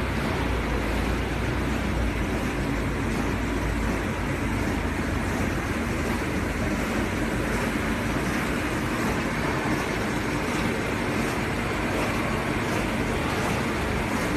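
Industrial A4 paper cutting machine running: a steady, dense mechanical noise of the machine working as paper from the rolls feeds through its rollers.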